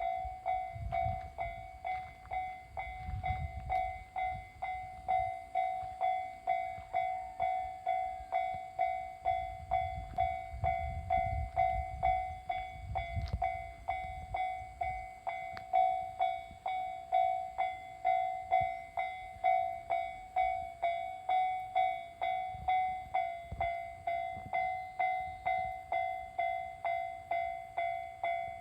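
Railway level-crossing warning bell ringing steadily at about two strikes a second, while a train with an open trolley car rumbles through the crossing in the first half.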